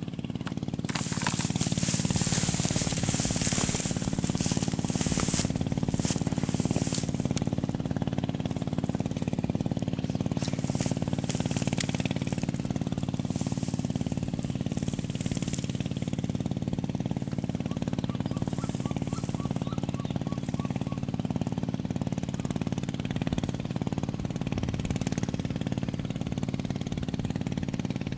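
A small engine running steadily at a low, even pitch. Over it come several short hissy swishes in the first few seconds and a few more about ten seconds in.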